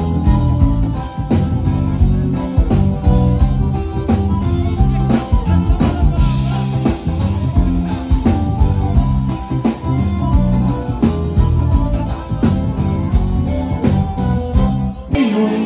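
Live band playing loudly through the stage PA, a mostly instrumental passage with a steady drum beat, bass and electric guitar. The music changes abruptly about half a second before the end.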